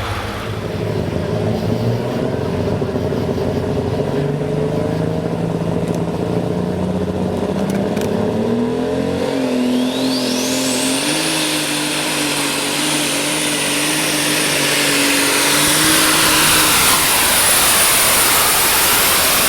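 Modified farm pulling tractor's turbocharged diesel engine running under full load on a pull. The engine note steps up, and about halfway through a high turbo whine climbs steeply and then holds.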